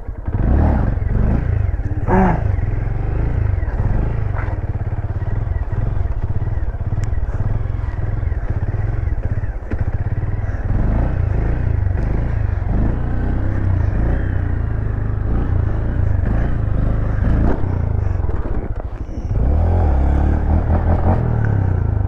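Motorcycle engine running under changing throttle as the bike is ridden for wheelie practice, its pitch rising and falling, with a dense low rumble throughout; it briefly drops about nineteen seconds in, then comes back louder.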